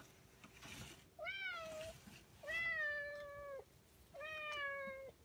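Lilac lynx-point Balinese cat meowing three times, each meow drawn out and level in pitch, the middle one the longest at about a second.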